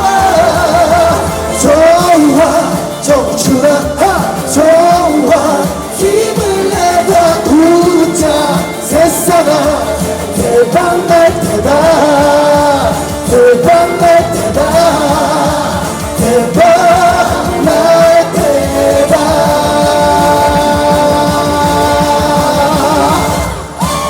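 Live Korean trot song played by a band through a PA, with a voice singing lines that slide and bend in pitch over a steady beat. About 20 seconds in it settles into a long held final chord, which cuts off near the end.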